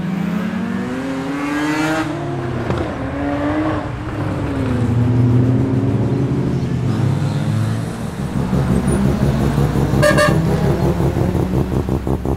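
Muscle car engines revving as cars pull away: the engine pitch climbs over the first two seconds, then drops back. From about eight seconds in, a loud, choppy engine rumble comes from close by.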